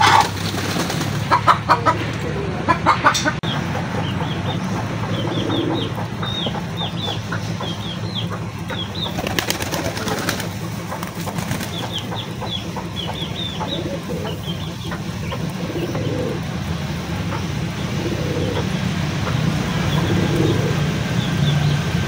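Chickens in a yard: a rooster flapping its wings, heard as a few loud clustered bursts in the first three seconds, then runs of short high chirps over a steady low hum.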